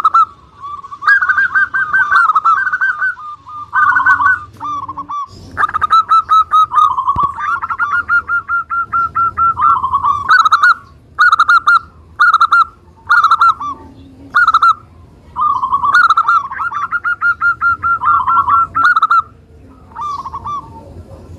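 Zebra dove (perkutut) singing its rolling, trilled cooing song: phrase after phrase of quick repeated notes, with short pauses between phrases.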